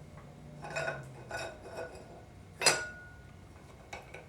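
Steel 4L60E transmission parts clinking against each other as they are handled and set in place during assembly: a few light clinks and one sharp, ringing clink about two and a half seconds in.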